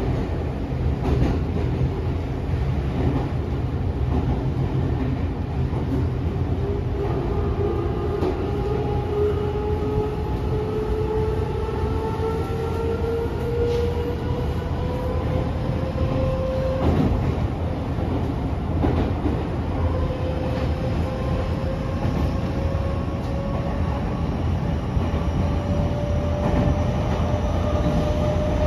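Inside a Tokyo Metro 05 series subway car on the move: a steady rumble of wheels on rail with scattered clicks from the track. Over it is a traction motor whine that rises slowly in pitch as the train gathers speed, breaks off briefly about halfway through, then climbs again.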